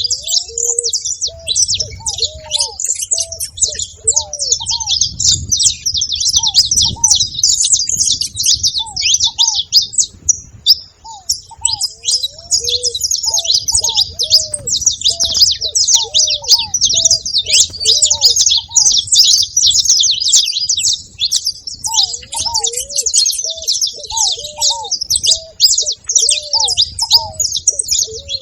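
Saffron finch singing and chattering nonstop in fast, high chirps. Short runs of much lower, hooked call notes repeat again and again underneath.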